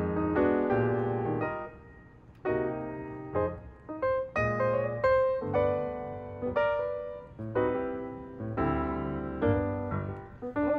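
Slow piano music: chords and notes struck about once a second and left to ring, with a brief pause about two seconds in.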